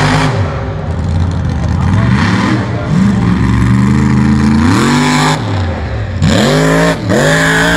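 Lifted mud truck's engine revved hard again and again, its pitch climbing and dropping several times, with the highest revs in the last two seconds as the truck lifts its front wheels.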